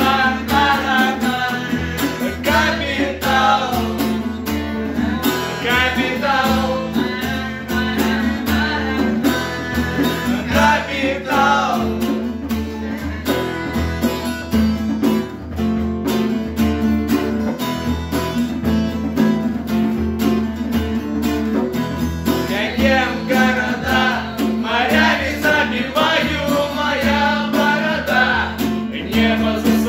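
Acoustic guitar strummed in a steady rhythm, with a man singing over it in stretches, most of all in the last several seconds.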